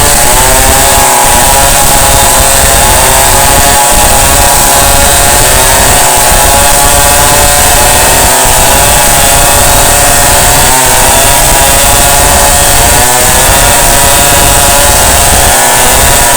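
Chainsaw running loudly and continuously, its engine pitch rising and falling as it cuts.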